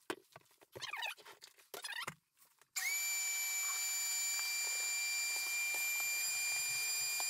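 Shop vacuum switched on about three seconds in, running with a steady high whine while it sucks up sawdust from the floor. Before it, a few light knocks and rustles of handling.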